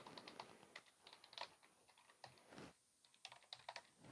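Faint computer keyboard typing: quick, irregular key clicks as commands are entered, with a short pause a little under three seconds in.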